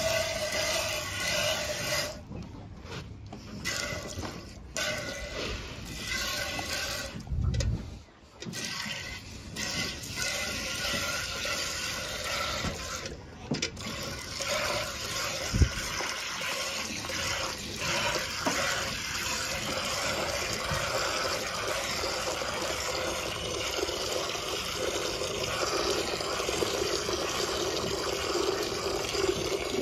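Milk squirting from a sheep's teats into a steel pail during hand milking: a steady frothy hiss of streams hitting milk foam. A single sharp knock a little past halfway.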